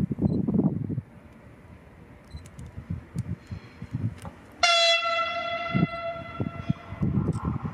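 Train horn sounding one long blast of about two seconds, starting suddenly a little past halfway, from a train approaching down the line. A low, uneven rumble comes in the first second.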